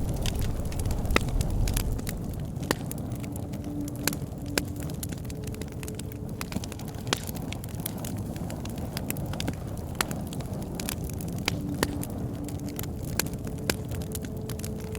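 Campfire burning with a low rumble of flames and frequent sharp, irregular crackles and pops of the burning wood.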